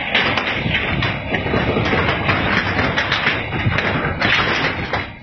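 A phone's microphone knocked and rubbed as the phone is swung about, giving many irregular thumps and taps over a loud, steady rushing noise.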